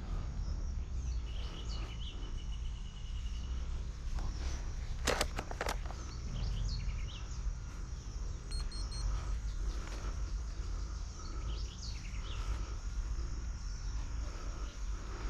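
Outdoor field ambience: a steady low rumble with birds chirping, including a rapid trill of repeated notes about a second in. Two sharp clicks about five seconds in.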